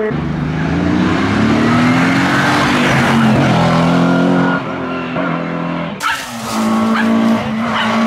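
Hill-climb race cars at full throttle. First an engine revs up with rising pitch, breaking at gear changes about three and four and a half seconds in. After an abrupt change about six seconds in, a Citroën AX rally car's engine runs at high revs as it approaches.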